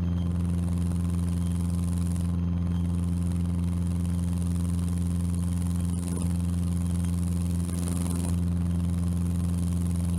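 Cessna 150's four-cylinder Continental O-200 engine and propeller droning steadily at climb power, with an even, unchanging pitch.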